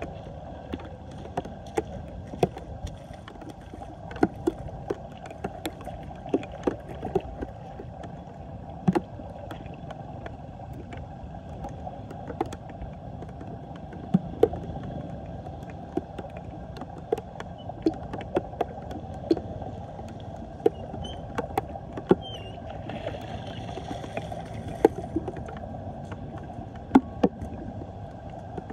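Floodwater whirlpooling down a cleared storm drain: a steady gurgling rush broken by irregular sharp plops and clicks.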